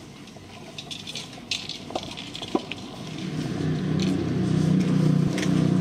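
A car engine running nearby, its low hum growing louder from about three seconds in, as if the car is approaching. Before that there are scattered light clicks and scrapes.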